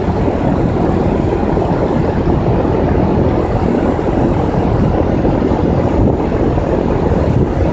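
2001 Goodman air conditioner running steadily, a loud even rushing noise with most of its weight in the low range.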